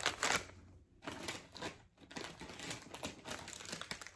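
Plastic snack-chip bags crinkling and crackling as they are picked up and handled, in short irregular bursts, loudest at the start with brief lulls about one and two seconds in.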